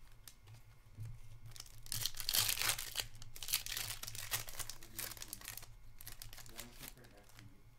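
Foil wrapper of a hockey trading-card pack being torn open and crinkled in the hands, a stretch of crackling that is loudest from about two to four and a half seconds in.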